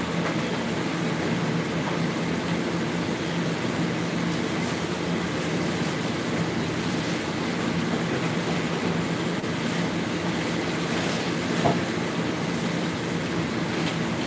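Steady background drone of a running household machine: an even rushing noise over a low hum, with one faint knock about twelve seconds in.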